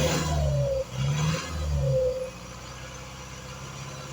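Vehicle engine revved twice in short blips, then dropping back to a steady idle about two seconds in. Its catalytic converter is still waterlogged after three days submerged, with white smoke and water still coming from the exhaust.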